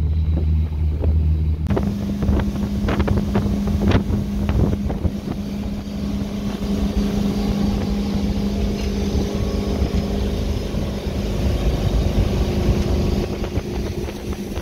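Chaparral Sunesta 254's Volvo Penta sterndrive engine running with the boat under way, a steady hum under the rush of water and wind on the microphone. A few sharp knocks come between two and four seconds in.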